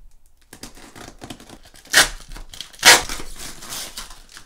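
Packing tape and cardboard flaps of a parcel being torn open: two loud rips, about two and three seconds in, the second longer, amid lighter crinkling.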